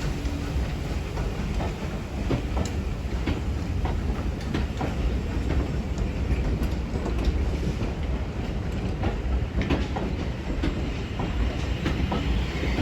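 Heritage railway train rolling past: a steady low rumble of wheels on rails, with irregular sharp clicks and clacks as the wheels cross rail joints.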